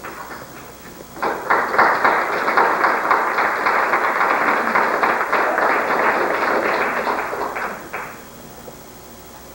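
Rapid, dense percussion, a fast roll of many small strokes. It starts sharply about a second in, holds steady, and stops abruptly near the end.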